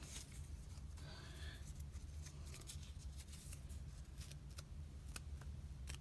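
Faint handling noise: scattered light clicks and rustles over a steady low hum.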